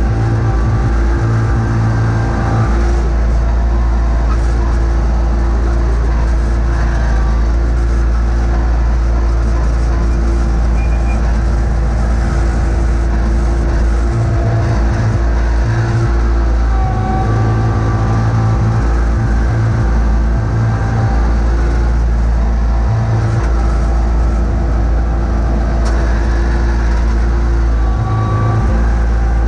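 John Deere X585 garden tractor's engine running steadily under load as it pushes snow with its front blade.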